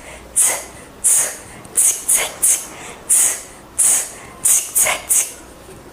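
A run of short, sharp hissing 'zz' strokes, about a dozen in uneven groups of one to three.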